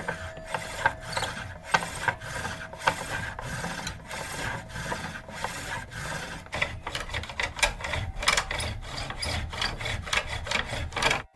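Amber being bored with a hand-powered bow drill: rhythmic rasping strokes of the wooden spindle working back and forth, about two a second at first and quickening to three or four a second in the second half.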